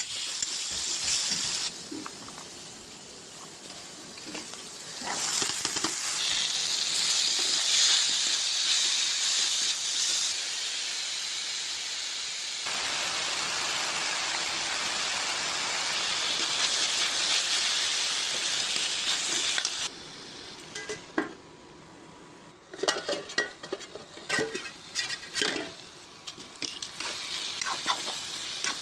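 Food sizzling as it fries in a pan, a steady hiss that changes level a few times. In the last third the sizzle drops lower and a spatula scrapes and knocks against the pan many times as the food is stirred.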